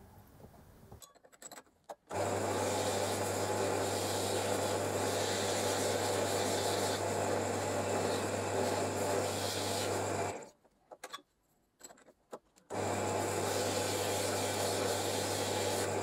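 Drill press spinning a copper tube while it is sanded with abrasive paper held by hand: a steady motor hum under a rasping scrape. It runs about eight seconds, stops, then starts again for about three seconds near the end.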